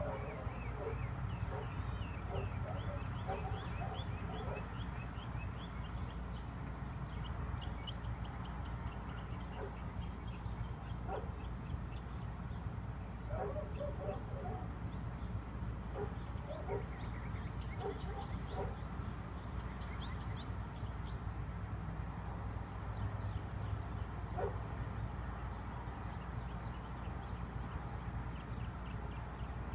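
Outdoor ambience with a steady low hum, broken several times by short bark-like animal calls in small clusters, and runs of rapid high chirping.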